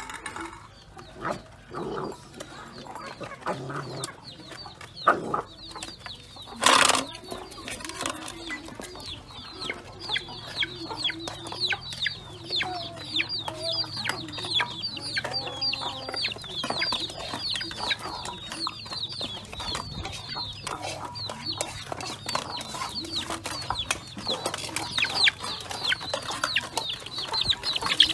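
Chickens calling: many short, high, falling peeps repeating rapidly, with lower clucks in between. A few sharp knocks or clatters come in the first seven seconds, the loudest about seven seconds in.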